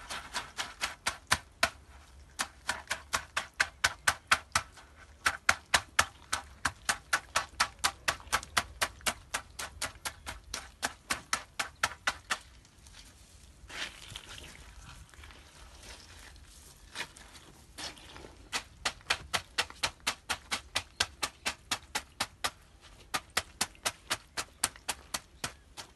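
Rapid, very regular clicking, about three to four sharp clicks a second. It stops for several seconds about halfway through, then starts again.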